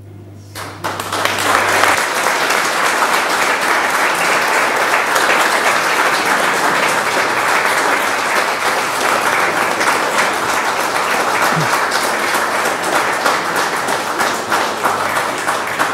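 Applause from the members of a parliamentary chamber, many hands clapping. It starts about a second in, right after the speech ends, runs on steadily and thins a little near the end.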